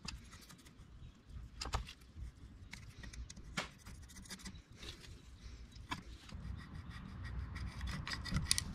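Faint scraping and scattered light clicks of a screwdriver tip working inside a small aluminum Briggs & Stratton carburetor body, cleaning it out.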